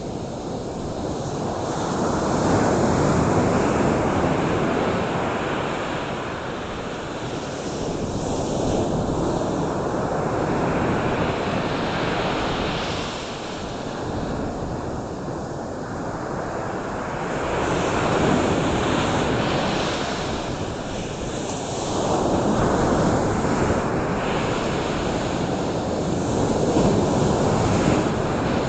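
Surf washing onto a shore: a steady rush of water noise that swells and fades about every five seconds as the waves come in.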